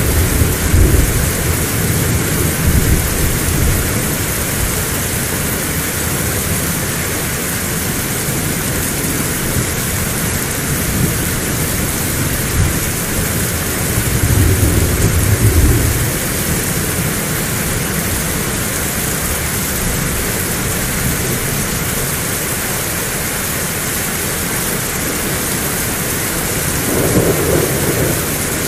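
Heavy rain falling in a steady hiss, with low rolls of thunder rumbling near the start, about halfway through and again near the end.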